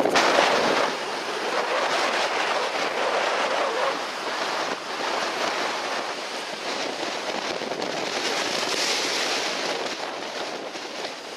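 Steady rushing noise of wind and surf on a beach, fading out near the end.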